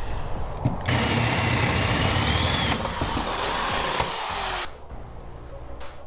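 Corded power drill spinning a hole saw through a metal boat hatch lid, cutting the hole for a flush latch, with a wavering squeal from the cut. It stops abruptly near the end.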